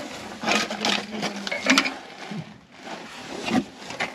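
A person crawling along a narrow concrete pipe tunnel over loose rubble: irregular bursts of scraping, shuffling and the rattle of stones shifting under hands, knees and clothing.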